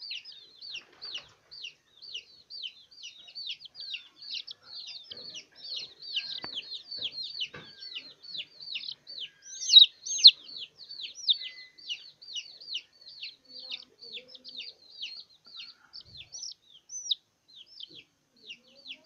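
Baby chick peeping over and over, about four short, high, falling peeps a second, with two louder peeps about ten seconds in.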